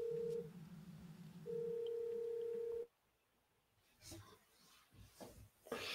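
Phone ringing: a steady electronic tone broken by a stretch of pulsing, buzzing lower tone, cut off suddenly about three seconds in. Faint small rustling noises follow.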